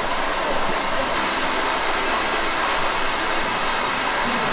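Handheld hair dryer blowing steadily, drying wet hair.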